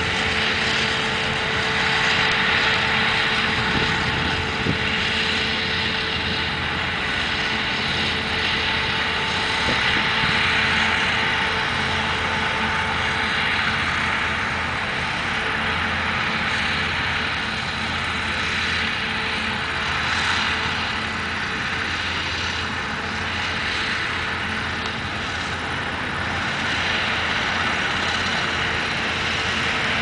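Claas Lexion combine harvester at work in wheat: the steady mechanical din of the engine and threshing machinery, with a constant hum running through it. The loudness swells and eases slightly as the machine moves along the crop.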